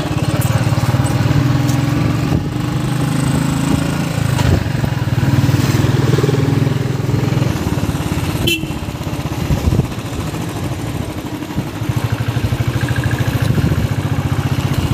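Motorcycle engine running while riding, heard from on the bike; the engine note eases off about eight seconds in, around a single sharp click, and picks up again near the end.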